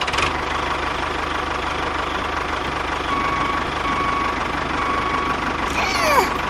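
Small engine of a DIY mini tractor starting and running steadily with a fast, even firing rhythm. A brief falling squeal comes near the end.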